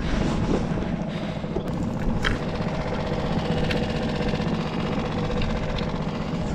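Small outboard motor on a skiff running steadily, with a few faint ticks over it.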